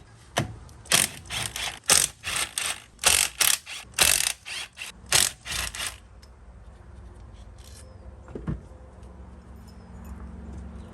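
Ratchet wrench clicking in quick back-and-forth strokes while loosening bolts on a Yamaha RD350 two-stroke engine, for about six seconds. After that it goes quieter, with a single knock a couple of seconds later.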